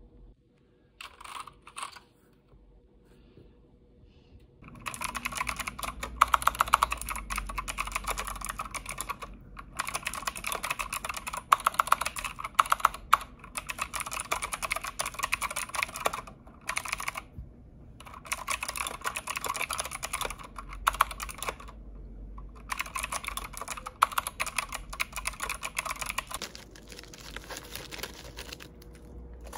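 Typing on a computer keyboard: fast runs of key clicks, starting about five seconds in and stopping briefly a few times.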